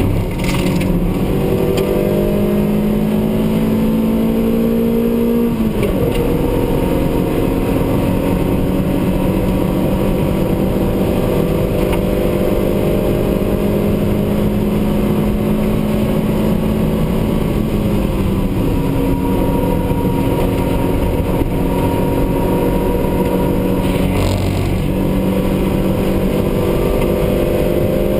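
Racing car's engine heard from inside the cabin at full throttle, its pitch climbing slowly as the car gathers speed, with a sharp drop about six seconds in as it shifts up. The pitch dips briefly twice more later on.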